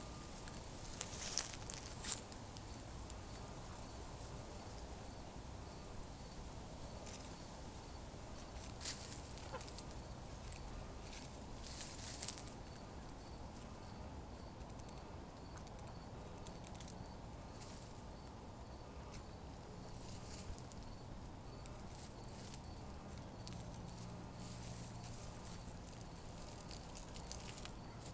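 Hens dust bathing in loose soil: a few short scratchy rustles of flicked dirt and shaken feathers, about a second in, then near 9 and 12 seconds, over a soft steady background hiss.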